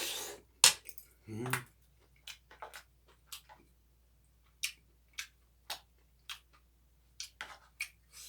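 Spoon and chopsticks clicking against bowls while eating: a dozen or so short, sharp clicks at uneven intervals, with a brief low hum of a voice about a second in.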